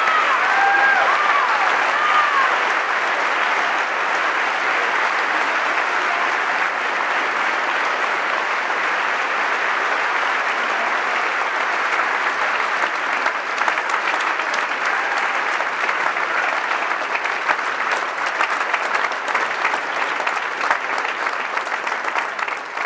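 Large audience applauding steadily, with individual claps standing out more toward the end, where the clapping begins to die down.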